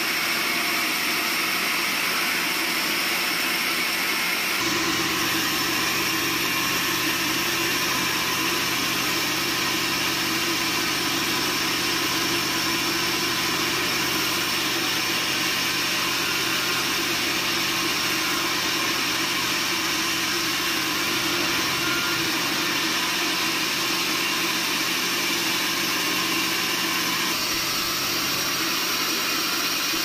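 Band saw resaw running steadily while ripping a board of yellow resin wood, an even, loud sawing noise; a lower hum joins about five seconds in.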